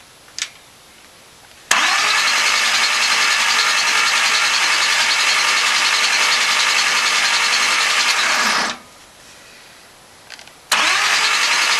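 427 small-block Chevy V8 being spun over on its starter motor in two long cranks: one of about seven seconds starting just under two seconds in, and a second starting near the end. The engine is being turned over to check it after new valve springs were fitted.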